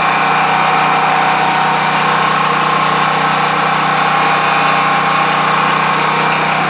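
Power generator engine running steadily and loud, with an even, unchanging drone.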